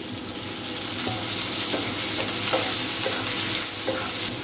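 Onions and chopped tomato sizzling in hot oil in a nonstick kadai while a wooden spatula stirs them, with a few light taps and scrapes of the spatula against the pan.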